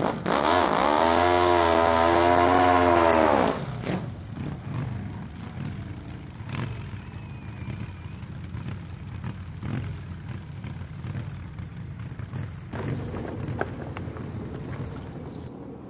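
Pocket bike's small engine held at high revs for about three seconds, its pitch wavering slightly, then dropping away to a quieter, uneven low rumble with scattered knocks.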